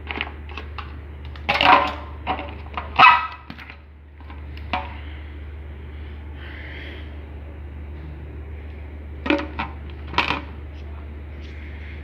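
A dog barking: two barks a couple of seconds in and two more about nine to ten seconds in, over a steady low hum, with a few light clicks between them.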